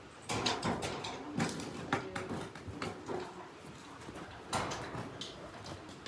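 A horse's hooves knocking irregularly on a hard barn floor as it is moved about.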